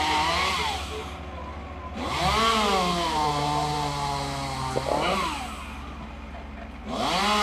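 Chainsaw revving in three bursts, its engine pitch rising then dropping each time, with a long steady stretch in the middle burst. A steady low engine rumble runs underneath.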